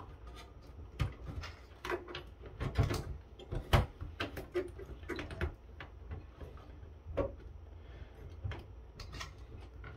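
Irregular clicks, taps and knocks of hands handling the internal power supply and its cable connectors inside a network switch's sheet-metal chassis, working them loose.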